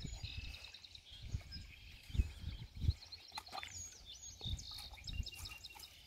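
Small birds chirping and singing, with quick runs of short high notes several times, over low gusts of wind buffeting the microphone.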